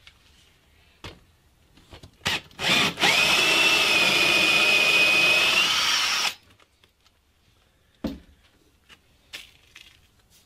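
Handheld electric drill with an 18 mm spade bit boring deeper into a wooden block. A few short clicks come first, then about three seconds of steady drilling with a high whine, which cuts off suddenly. A single knock follows a couple of seconds later.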